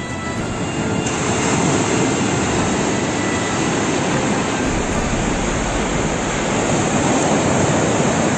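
Surf washing onto the beach, a loud steady rushing noise that builds over the first couple of seconds.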